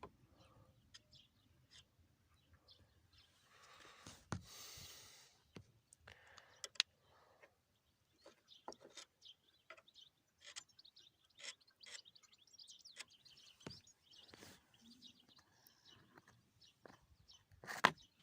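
Faint bird chirps over quiet background, with a brief rustle about four seconds in and a few soft clicks of handling, the loudest one near the end.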